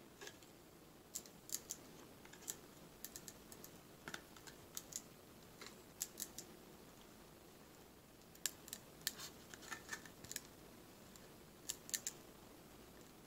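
Faint, irregular small clicks and crinkles, some in quick pairs, as a model airplane rudder joined by an X hinge of iron-on covering film is flexed back and forth by hand.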